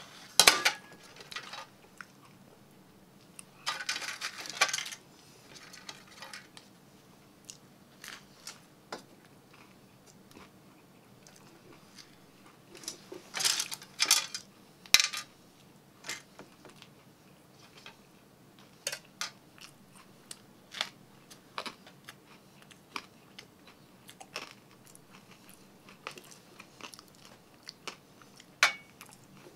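A person eating: scattered crunchy bites and chewing, the loudest bursts about four and thirteen to fourteen seconds in, with small sharp clicks and knocks in between.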